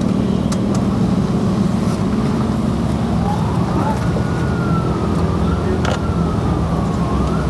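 A steady engine drone runs throughout. From about three seconds in, a distant siren wails over it, rising, falling slowly, then rising again near the end. A few light clicks are heard.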